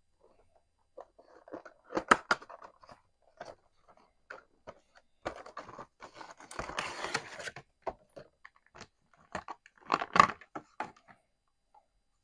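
Cardboard Funko Pop box and its plastic insert handled while a vinyl figure is taken out: a string of clicks, taps and crinkles, with a longer crinkling rustle about six to seven and a half seconds in.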